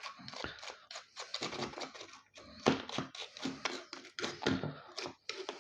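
Irregular clicking, rattling and scraping of metal and plastic parts as a PC power supply is pulled apart by hand.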